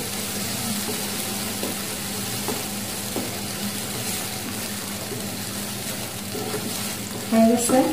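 Thick creamy chicken gravy sizzling in a non-stick wok while a wooden spatula stirs it, with faint scrapes, over a steady low hum.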